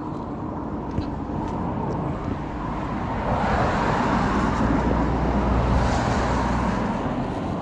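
A road vehicle, most likely a car, passing by: tyre and engine noise building to its loudest around five seconds in, then fading.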